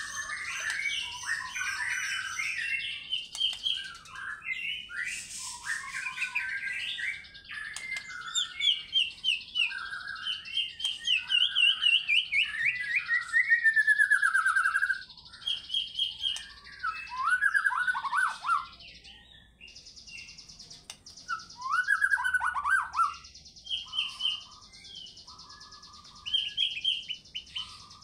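White-rumped shama singing a varied song of whistled phrases, fast trills and down-slurred notes. It sings almost without a break for the first half, then in shorter phrases with pauses between them.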